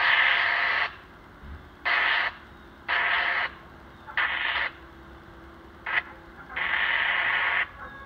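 Fire-department radio scanner giving six abrupt bursts of static as transmissions key up and drop, with no intelligible speech. The bursts are short and sharp-edged, the longest about a second, at the start and near the end.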